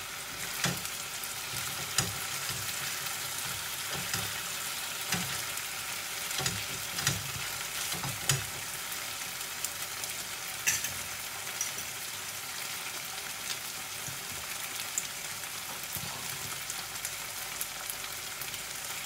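Chicken pieces and onions frying in a pan with a steady sizzle. A spatula scrapes and knocks against the pan now and then through the first half as the chicken is turned, then only the sizzle goes on.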